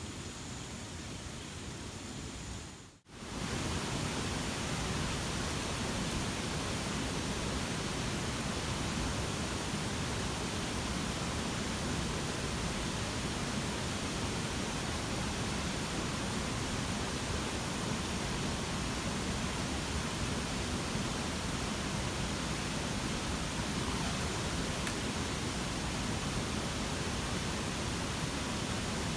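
A steady, even hiss with no distinct events, cut by a brief dropout about three seconds in.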